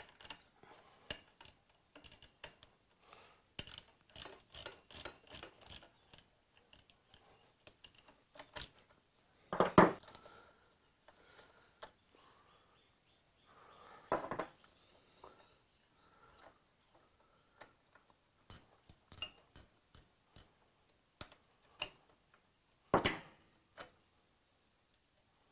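Hand ratchet and small socket working the exhaust header nuts off the cylinder-head studs: runs of light ratchet clicks and small metal-on-metal clinks, with three louder knocks of tool against metal spread through it.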